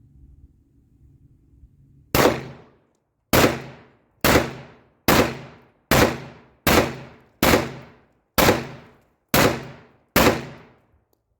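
Ten pistol shots from a Glock 34 Gen 5 MOS firing 9mm 115-grain range ammunition, being test-fired after custom slide and frame work. They start about two seconds in and come a little under a second apart, each with a short fading echo.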